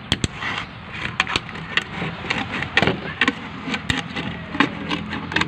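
Scissors snipping through a thin clear plastic water bottle: a run of irregular sharp snips and crackles of the plastic.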